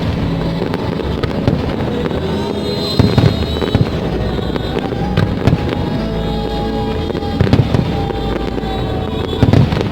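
Aerial fireworks bursting in a string of loud bangs and crackles over a steady rumble, with the display's music playing underneath.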